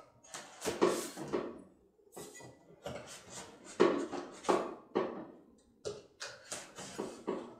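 A large cardboard box being handled and moved about on the floor: irregular rustling and scraping of cardboard with a few dull knocks.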